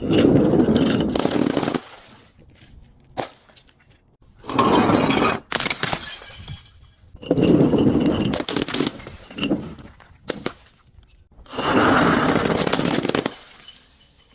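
Glass bottles being crushed and breaking, in several loud crunching bursts of one to two seconds each with short pauses between them.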